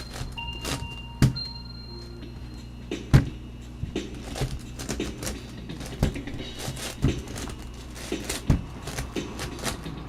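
Plastic clicking and clacking of a MoYu 10x10 speed cube's layers being turned by hand, irregular, with two sharper knocks about one and three seconds in. Faint music sits underneath.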